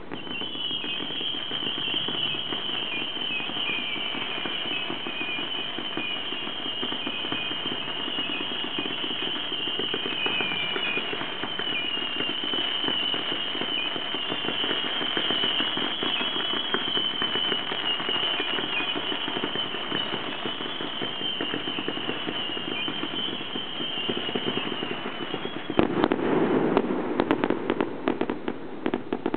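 Fireworks display: a dense, steady crackle with a high, wavering whistle over it for most of the time. Near the end the whistle stops and a run of loud, sharp cracks begins.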